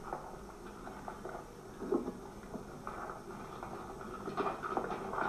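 Irregular light knocks and scrapes of people digging and rummaging to uncover hidden weapons, with a few sharper knocks about two, three and four and a half seconds in.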